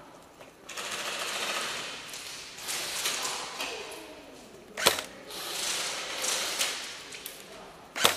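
Airsoft guns firing in rapid full-auto bursts, a fast mechanical rattle, with two sharp loud cracks about five seconds in and near the end.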